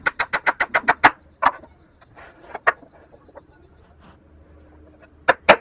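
Small hammer tapping a wooden mitred bridle joint home: a quick run of about nine light taps in the first second, a few scattered taps after, then another quick run near the end.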